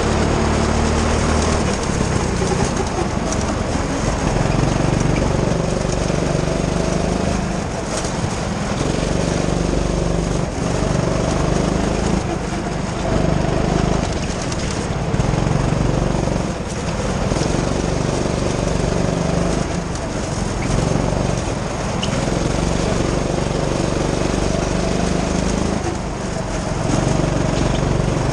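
Go-kart engine running under the driver, its pitch rising and falling repeatedly as it revs up on the straights and drops back into the corners.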